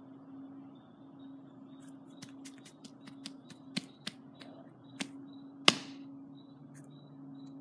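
A steady low hum with a run of about a dozen sharp, irregular clicks over several seconds. The loudest single click comes about three-quarters of the way through.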